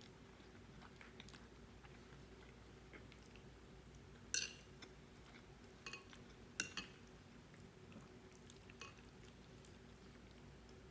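Quiet eating: a metal fork clinking against a plate four or five times, the loudest clinks a little over four seconds and about six and a half seconds in, with soft chewing between and a faint steady hum underneath.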